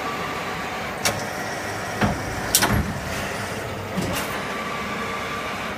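CNC lathe running: a steady machine noise with a faint whine, broken by four sharp knocks, the loudest about two and a half seconds in.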